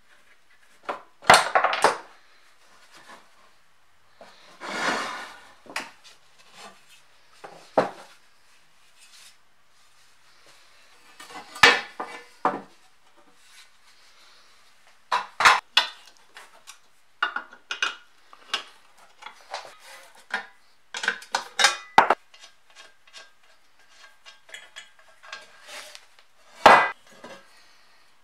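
Steel parts of an old Kity 642 sharpener being handled on a wooden workbench: irregular metal clanks and knocks as a bracket is lifted off the base plate and set down, with a longer scraping sound about five seconds in.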